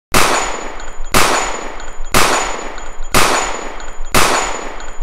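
Gunshot sound effects: single shots about one second apart, five in all. Each has a long echoing tail and a thin high ring.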